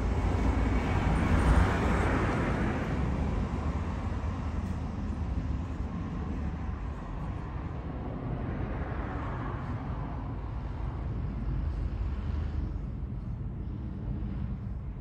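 Outdoor background noise by open water: a steady low rumble with a hiss that swells and fades twice, about two seconds in and again around nine seconds.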